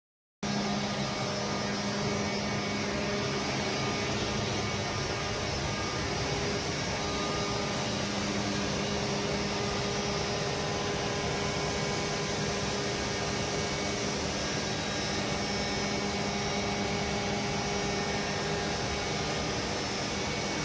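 Atlas Copco ZT37 oil-free rotary screw air compressor running in its compressor area: a steady rushing noise with an even hum under it.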